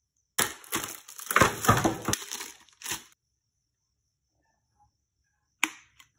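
Clear plastic packaging crinkling and crackling for about three seconds. Then, a little before the end, a single sharp plastic click as the figure's foot is pegged onto its base.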